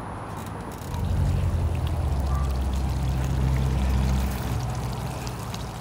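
A low rumble on the phone's microphone, starting about a second in and easing off after about four seconds, over a steady hiss: handling noise as the phone is moved.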